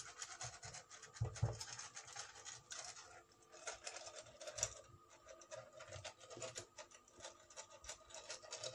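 Silicone pastry brush scratching and dabbing olive oil across the ridged ceramic plates of a waffle iron: faint, irregular scratching.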